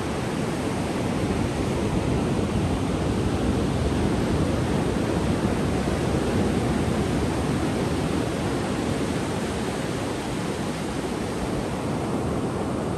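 Ocean surf: waves breaking and washing up the sand in a steady, continuous rush that swells slightly in the middle and eases toward the end.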